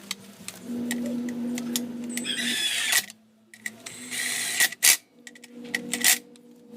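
Hand tools working on the heat guard of a motorcycle exhaust: sharp metallic clicks, then two short ratcheting whirrs as a 10 mm wrench or socket wrench turns the bolts.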